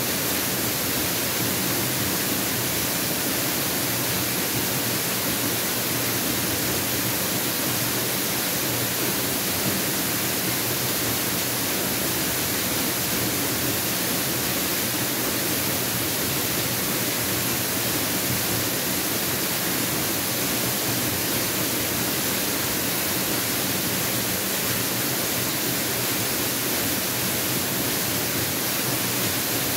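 Mountain waterfall pouring steadily, an even rush of falling water that does not change.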